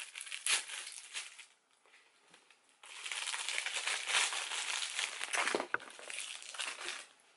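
Crinkling plastic packaging as a small bag is torn open and handled by hand. It comes in two stretches: a short one at the start, then a pause, then a longer one from about three seconds in until near the end.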